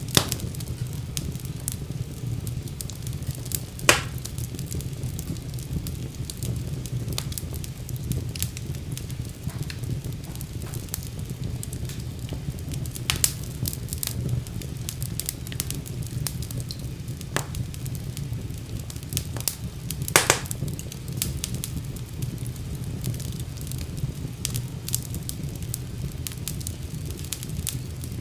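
Wood fire burning in a fireplace: a steady low rumble of flames with frequent crackles and sharp pops, the loudest about four seconds in and again about twenty seconds in.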